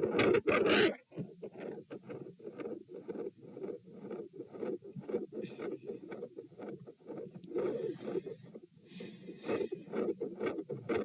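Heart sounds picked up over the mitral area, beating steadily. About a second in, the beats drop suddenly from loud to much quieter. After that they run on as a regular lub-dub rhythm, with two swells of breath noise in the second half.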